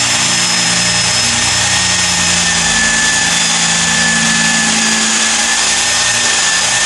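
Corded electric drill running continuously with a steady whine as its spade bit bores into a pumpkin's flesh.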